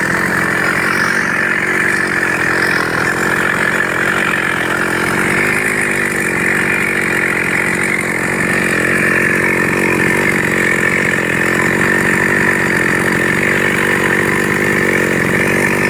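Model 5200 two-stroke chainsaw engine running steadily with a slight dip in speed partway through. It runs louder than normal, a fault whose cause the owner has not yet found.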